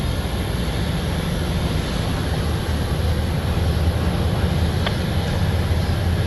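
Freight train boxcars and a covered hopper rolling past, a steady low rumble of steel wheels on rail, with one short click about five seconds in.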